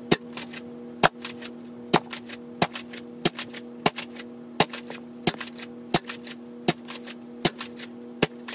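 Dart Zone Max Stryker pump-action spring foam dart blaster being fired repeatedly. Each shot is a sharp snap followed by a couple of quicker clacks from the pump being racked, about one shot a second, around a dozen times in a row.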